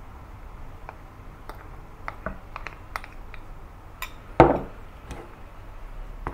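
A metal spoon clinking against a glass bowl and a stainless steel mixing bowl as tapioca starch is spooned onto mashed sweet potato: a run of sharp light clinks, with one louder knock about four and a half seconds in. Near the end the spoon scrapes in the steel bowl as the starch is stirred in.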